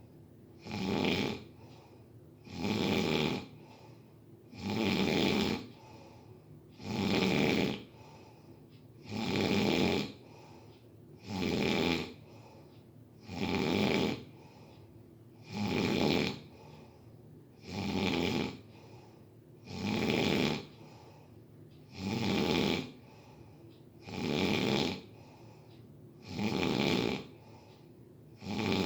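A person snoring in a steady, even rhythm, about one snore every two seconds, each lasting around a second.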